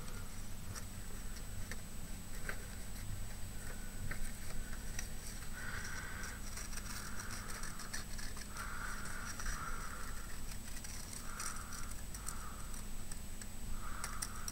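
Scissors cutting paper in a series of short cuts, with small clicks and taps in between.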